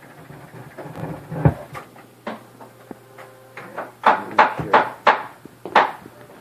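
Vintage jukebox record-changer mechanism running: a steady motor hum under a series of sharp mechanical clicks and clunks as the carriage travels along the rack of records to a selection. The clunks grow louder and come faster about four seconds in.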